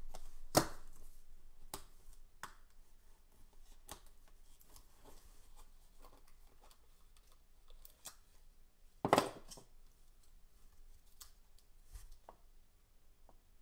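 Cardboard handling noises from a small National Treasures football card pack box being pulled out of its hobby box and opened by hand. Scattered sharp taps and scrapes of cardboard, the loudest a short scrape about nine seconds in.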